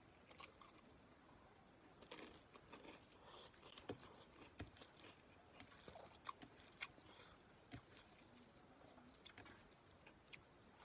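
Faint close-up eating sounds: chewing and crunching on potato crackers with curried rice eaten by hand. Small sharp clicks and crunches are scattered throughout, thickest between about four and seven seconds in.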